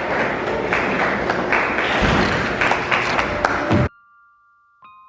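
Audience applauding, a dense patter of many hands clapping, cut off abruptly about four seconds in; faint steady electronic tones begin near the end.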